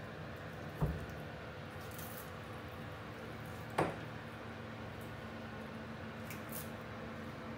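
Wet, slimy burbot being handled in a plastic fish crate: faint wet squishing, with two short knocks, one about a second in and one near the middle, over a steady low hum.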